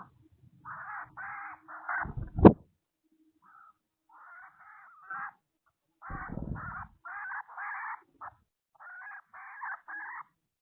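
A bird calling in runs of short, harsh, repeated calls. A sharp knock about two and a half seconds in is the loudest sound, and there is a brief low rumble around six seconds in.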